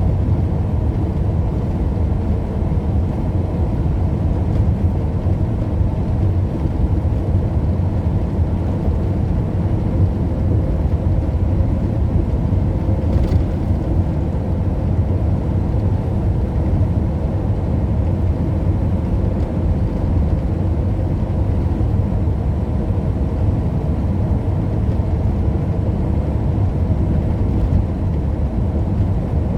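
Steady engine and road rumble inside a moving vehicle's cabin, low and unbroken.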